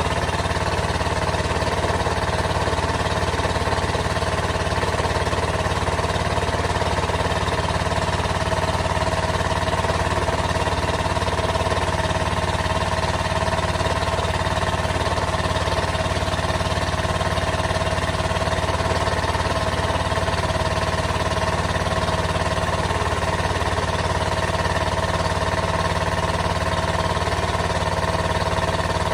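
Caterpillar D13000 diesel engine, a 1940s D8 bulldozer engine, running steadily at a constant speed.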